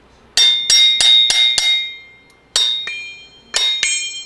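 Hammer tapping on the hot tub pump motor's rotor shaft and aluminium end bell to knock the end bell off the worn bearing: sharp metal strikes that ring briefly, five in quick succession, then a single blow, then a quick run of three or four more near the end.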